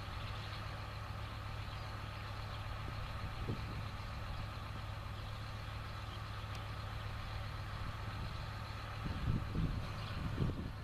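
Farm tractor engine running steadily at idle while hitched to a stopped large square baler, with a few low bumps near the end.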